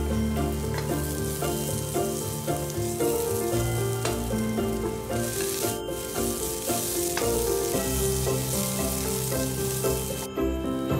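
Chopped garlic, shallots and ginger sizzling in hot oil in a frying pan while being stirred with a wooden spatula; dried chillies join them partway. The sizzle briefly drops out about halfway and again near the end, with light background music underneath.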